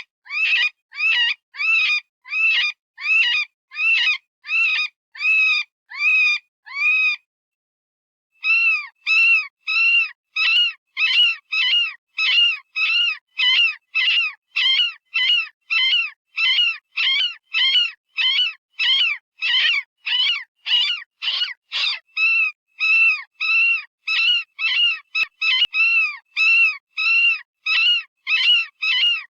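Software-generated rabbit distress call, the kind used as a predator-hunting call: a short, high-pitched scream that arches up and down in pitch, repeated about two to three times a second. It breaks off for about a second roughly seven seconds in, then carries on.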